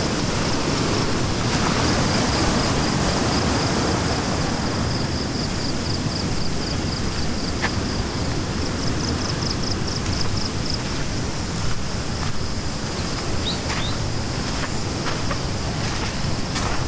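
Steady rush of a swollen, fast-flowing river running high after a night of heavy rain, under a continuous high-pitched shrilling of insects that pulses for a few seconds in the middle. A few short high chirps come a little after halfway.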